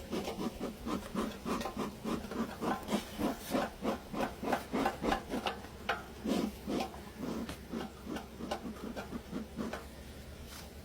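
Metal hive tool scraping along the wooden parts of a beehive in quick repeated strokes, about two to three a second, clearing away a mess of wax and debris; the strokes stop shortly before the end.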